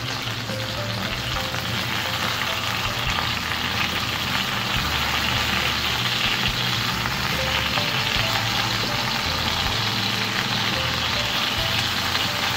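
Chicken mince kebabs shallow-frying in a little oil on a flat pan, sizzling steadily as they are turned over one by one.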